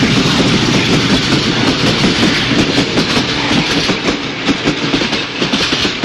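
Passenger train running along the track, its wheels clattering over the rail joints in a steady clickety-clack, growing a little fainter near the end as it moves away.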